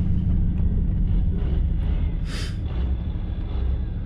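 Old half-ton pickup truck hauling a scrap car, its engine and road noise a steady low rumble, with a brief hiss a little over two seconds in.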